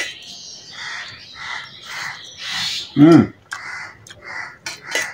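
Mouth noises of a person eating very spicy noodles: a run of quick hissing breaths and slurps about twice a second, with one short vocal cry about three seconds in.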